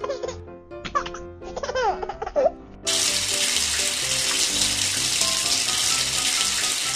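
A baby giggling in short bursts over light background music; about three seconds in, running water starts suddenly and keeps flowing with a steady hiss, the music still going underneath.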